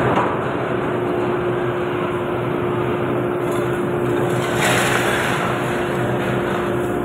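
Steady loud industrial din of a steel melting shop with its furnaces running, a constant mid-pitched hum running through it. A brief hissing swell comes about five seconds in.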